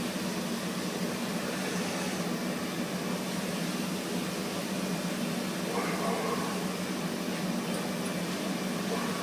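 Gas burner running with a steady, even roar, heating a pot of water and wax.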